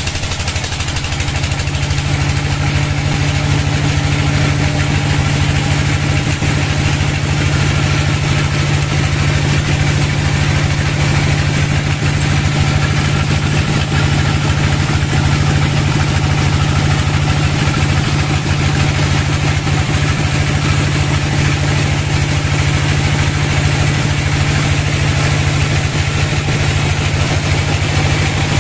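Large vertical sawmill bandsaw running steadily while its blade rips lengthwise through a log: a loud, continuous drone with a low hum that grows stronger about a second in.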